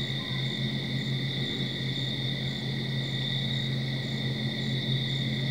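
Night insect chorus: a steady high trill with a fainter, higher chirp repeating about twice a second, over a low steady hum.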